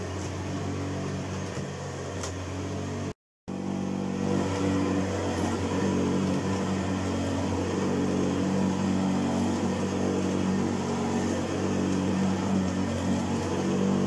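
Hoover Senior Ranger U4014 upright vacuum cleaner running on carpet, a steady motor hum. It cuts out for a moment about three seconds in and comes back a little louder.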